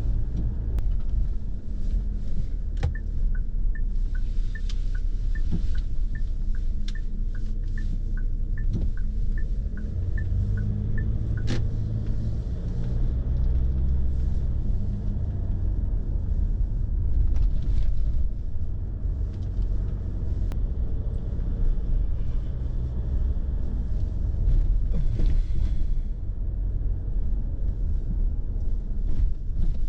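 Steady engine and road rumble inside a moving car's cabin. From about three seconds in to about eleven seconds in, a turn-signal indicator ticks a little over twice a second, alternating between two tones.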